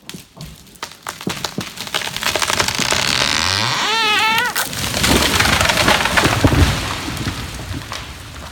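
A tree falling after being felled with a chainsaw. Hinge wood cracks and splinters faster and faster, with a brief wavering creak about four seconds in, then the trunk and breaking branches crash heavily onto the slope, and the cracking dies away.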